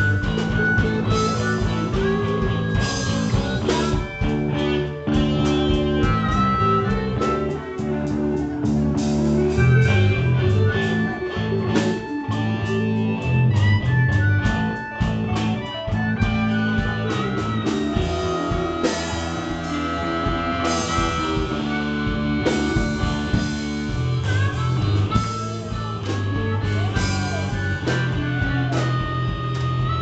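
Live blues band playing, with electric guitars, bass guitar and harmonica over a steady low end.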